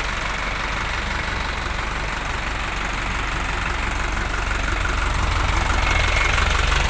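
Diesel engine of a HICOM Perkasa MTB 150 DX light truck idling with a steady clatter, growing louder about five seconds in.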